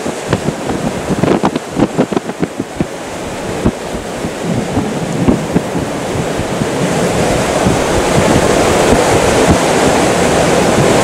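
Storm wind and wind-driven rain striking a car, heard from inside: sharp scattered hits against the body at first, building after a few seconds into a louder, steady rush as the downpour and gusts strengthen.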